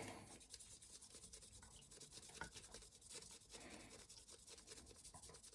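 Faint rubbing of a wet micro-mesh sanding pad worked by hand over a tobacco pipe stem, a soft, uneven scratching at the finest grit.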